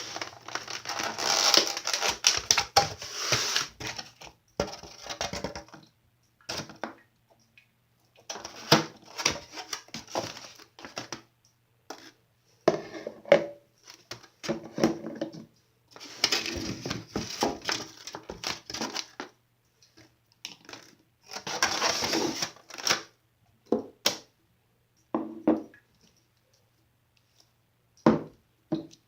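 Glossy slime being squished and poked by hand, crackling and clicking with small popping air pockets in bursts of a few seconds, with short pauses between.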